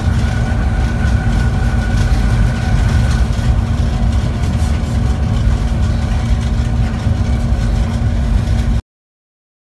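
A train running at speed: a steady heavy rumble with a constant engine drone, and a thin high whine that fades after about three seconds as a passenger train passes on the next track. The sound cuts off abruptly near the end.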